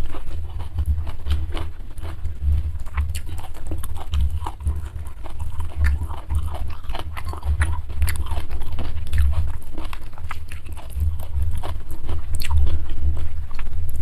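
A person chewing and crunching food close to the microphone: rhythmic low thumps of the jaw under a steady stream of wet mouth clicks and crunches.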